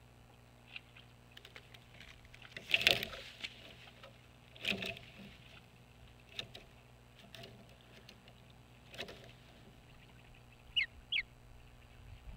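Bird calls: four short, harsh calls a couple of seconds apart, then two quick, sharp high whistled chirps close together near the end.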